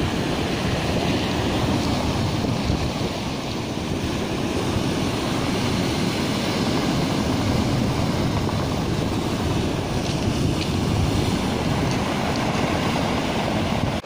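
Sea surf breaking and washing up a pebble beach in a steady, continuous rush.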